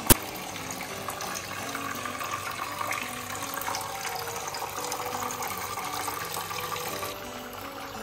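Small indoor fountain running: water trickling and splashing from its rock cascade into the bowl, steady throughout, with background music over it. A single sharp click right at the start.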